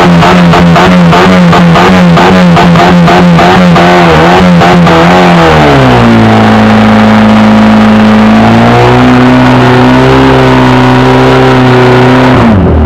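Portable fire pump's engine running hard, its pitch wavering rhythmically about two to three times a second. About five and a half seconds in it is throttled back and settles to a lower, steady note, rises slightly a few seconds later, and drops away again near the end.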